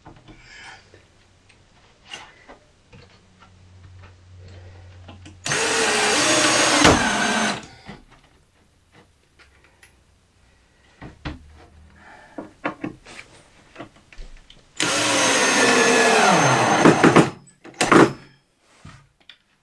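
Power drill driving screws into timber shelving: two runs of about two seconds each, the second slowing with a falling pitch at its end, and a short burst near the end. Knocks and clicks of handling come between the runs.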